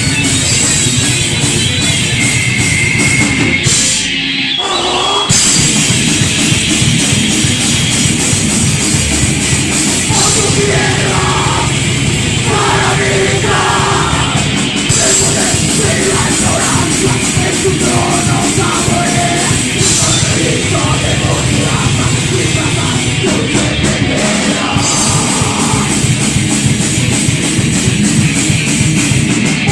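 Thrash metal band playing: distorted electric guitars, bass and drums, with shouted vocals coming in about ten seconds in. The band thins out briefly about four seconds in before the full band crashes back.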